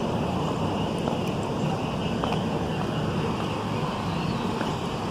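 Steady road and engine noise of a car being driven, with a few faint clicks.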